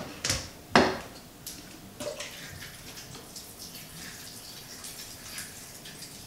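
Saline solution squirted from a squeeze bottle into a glue slime mixture: two sharp wet squirts about half a second apart near the start, then faint scattered wet clicks and drips.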